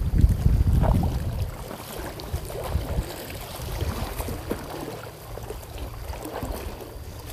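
Wind buffeting the microphone, strongest in the first second or so, over water lapping and sloshing against the breakwater.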